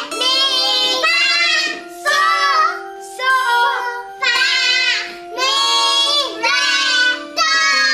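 A group of young children singing the solfège scale up and back down together, "do re mi fa sol, sol fa mi re do", holding each note for about a second.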